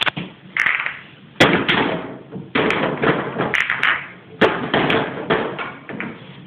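A run of irregular knocks, taps and thumps, several a second at times, from play with a toy on a wooden surface.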